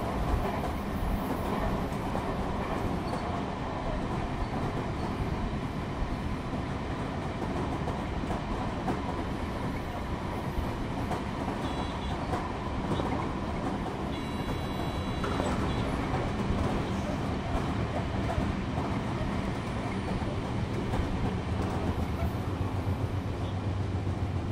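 Sotetsu commuter train running along the line, heard from inside the front car behind the driver's cab: a steady rumble of wheels on rail with clickety-clack from the rail joints. A couple of short high beeps sound around the middle, and near the end a low hum comes in as the train approaches the next station.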